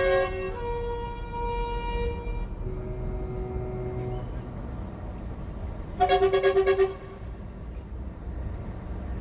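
Truck air horns sounding: a held multi-note horn chord that shifts pitch and fades out within the first few seconds, a lower horn note for about a second, then a loud rapid string of about seven short horn blasts in under a second. A low engine rumble runs underneath.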